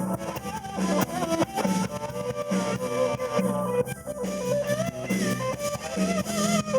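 Blues band playing an instrumental passage: an electric guitar lead with bent notes over a steady bass line and drums.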